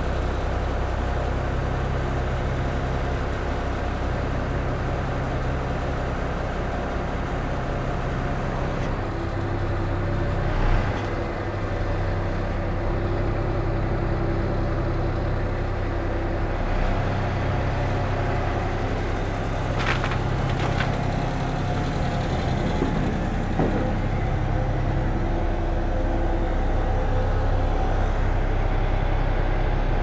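Truck diesel engine running steadily to power the hydraulics of an Amco Veba knuckle-boom crane, with the hydraulic hum shifting in pitch as the boom is moved by remote control. Two sharp clicks come about two-thirds of the way through.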